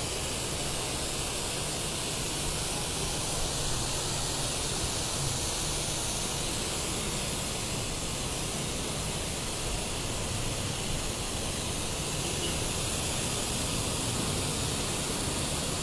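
High-pressure water jet from a Bandori RS 3000 industrial pressure washer spraying onto pavement: a steady hiss with a low rumble underneath.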